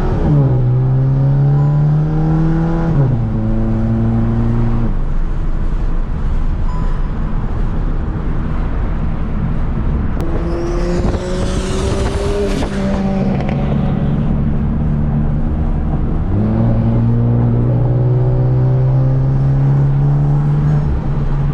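Turbocharged four-cylinder engine of a gutted, big-turbo VW MK7 GTI heard from inside the cabin under acceleration. Its pitch steps down through several upshifts in the first five seconds, then holds while cruising and climbs again about sixteen seconds in. A brief high hiss rises and falls around the middle.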